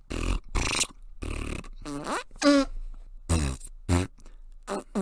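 A sentence spoken in Flatula, a constructed language of farts: a string of about nine short fart-like sounds, some raspy and some with a pitch that bends up and down.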